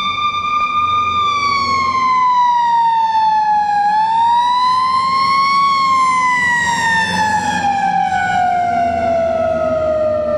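Fire engine siren wailing. Its pitch holds, dips, climbs back about halfway through, then slides steadily lower toward the end, with the truck's Detroit Diesel engine running underneath.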